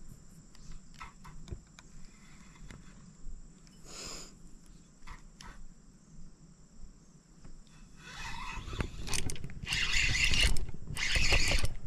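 Spinning reel cranked hard in two loud bursts from about eight seconds in, its gears and drag whirring and clicking as a largemouth bass is hooked and reeled in. Before that only faint scattered clicks.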